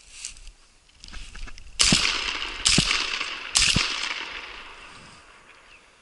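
Three shotgun shots fired in quick succession, a little under a second apart, each followed by a long echo that dies away over a couple of seconds.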